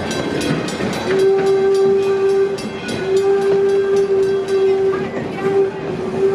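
Baldwin 4-4-0 steam locomotive D&LN No.7 sounding its steam whistle: a steady single-pitched blast starting about a second in and held with two brief breaks, over the regular beat of the running train.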